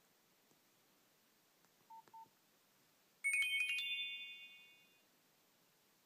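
Nokia Asha 210 phone: two short keypad beeps, then the built-in 'Message 2' alert tone about three seconds in, a quick run of bright high notes that ring on and fade out over about a second and a half.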